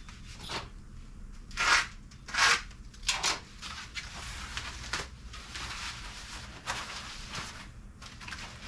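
Packing material being handled and pulled about, rustling and crinkling, with three louder bursts in the first few seconds.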